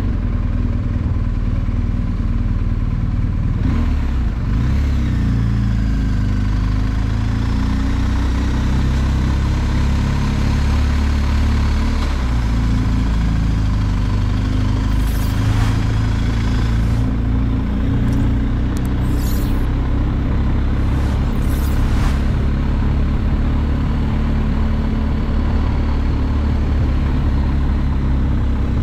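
BMW R 1250 GS Adventure's boxer-twin engine running steadily while riding, with a few brief hissing rushes past the middle.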